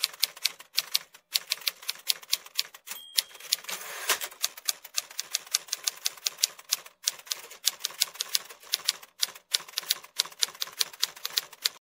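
Typewriter keys clacking rapidly and unevenly in fast runs with a few short pauses, with a brief high tone about three seconds in; it starts and stops abruptly, like an added typing sound effect.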